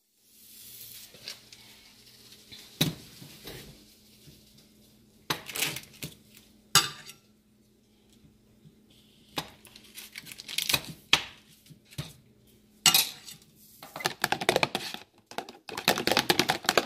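Cookware and utensils knocking and clinking at the stove in scattered single hits. Near the end comes a fast run of clicks: a spoon beating eggs in a plastic bowl.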